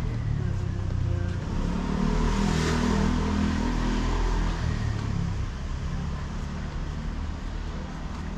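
A car driving past on a street over a steady low engine hum, loudest a little under three seconds in.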